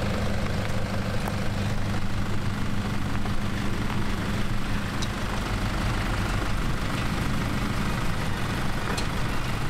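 Off-road 4WD engines running at low revs, a steady low hum with no revving.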